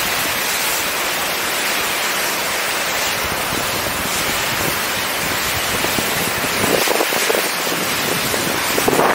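Wind buffeting the microphone of a camera riding on an open chairlift, a steady rushing noise that turns gustier and louder in the last couple of seconds.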